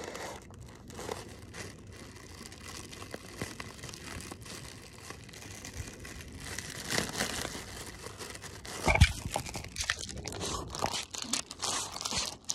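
Fingers crinkling and scratching a clear plastic inflated packing air pillow: a continuous crackly plastic rustle, with one sharp thump about nine seconds in.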